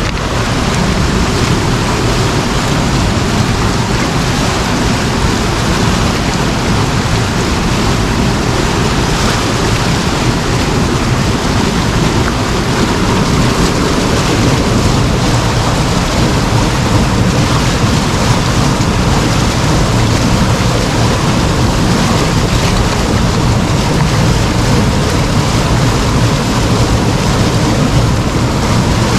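Waterfall: water pouring and splashing in a loud, steady rush.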